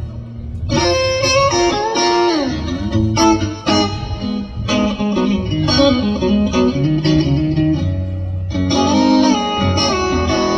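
Recorded rock-blues track led by electric guitar, played loud over a KV2 Audio SL412 point-source PA with a VHD 2.21 double 21-inch subwoofer. After a brief lull near the start, the guitar plays bent, sliding notes over a heavy bass line.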